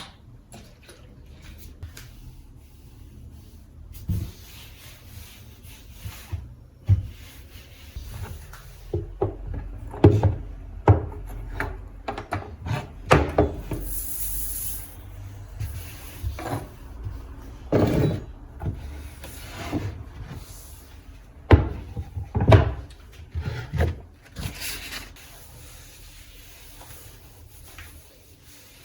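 Kitchen work sounds: irregular knocks and clatter of objects being handled and set down, with rubbing, and a brief hiss about halfway through.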